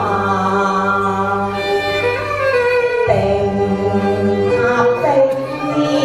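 A man and a woman singing a duet into microphones over instrumental accompaniment, with long held notes.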